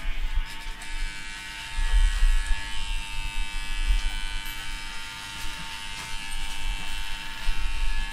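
Cordless pet grooming clippers buzzing steadily as they cut a man's short hair, with a low rumble swelling and fading underneath.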